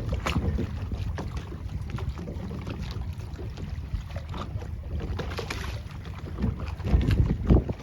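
Strong wind buffeting the microphone in a continuous low rumble, with the strongest gusts near the end.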